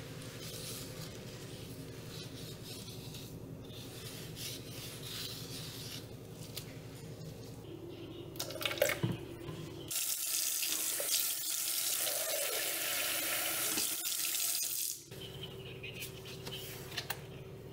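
Kitchen tap running for about five seconds midway, filling a plastic cup to make bleach water, just after bleach is poured from a plastic jug with a few knocks. A steady low hum sits under the quieter parts.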